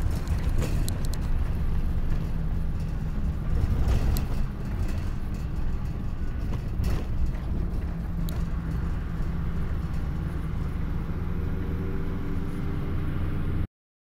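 A moving road vehicle heard from inside: a steady low engine and road rumble, with a few sharp rattles and knocks. It cuts off suddenly near the end.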